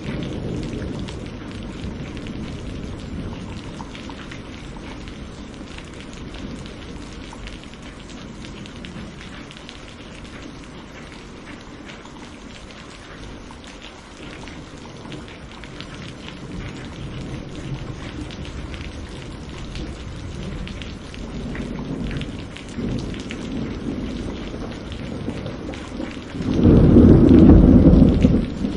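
Steady rain with thunder rumbling: an earlier rumble dies away in the first few seconds, low rumbles build again later, and a loud thunderclap rolls for about two seconds near the end.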